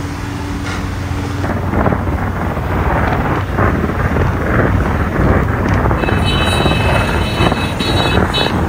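Road traffic from a moving car convoy and motorcycles, with wind buffeting the microphone. A low steady hum stops about one and a half seconds in, and a high steady tone comes in about six seconds in.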